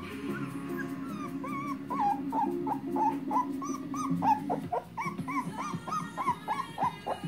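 Young puppy whining and crying in a run of short, rising-and-falling squeals, about three a second, starting a second or two in.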